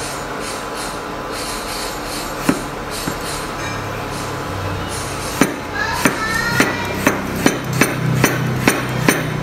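Cleaver-style kitchen knife slicing a cucumber and knocking on a plastic cutting board: two single chops, then from about halfway a steady run of chops, about two a second.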